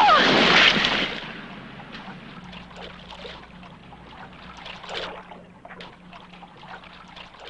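A loud rush of splashing water that dies away over the first second, then faint trickling and dripping.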